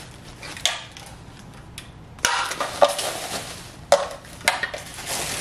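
Plastic packaging and bubble wrap rustling and crinkling as a food chopper is unwrapped, with a few sharp clacks of its hard plastic parts. The crinkling gets louder about two seconds in.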